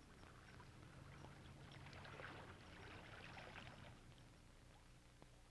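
Near silence: a faint steady hum and hiss with a few light scattered crackles.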